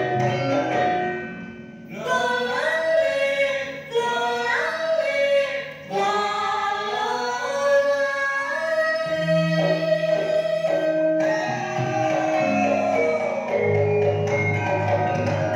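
East Javanese gamelan dance music with singing. The voice glides between notes and holds one long note in the middle over stepped instrumental tones, and the music dips briefly twice near the start.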